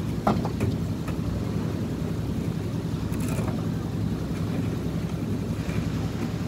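An engine running steadily at a concrete pour, with a few short knocks and a brief scrape from the workers' tools.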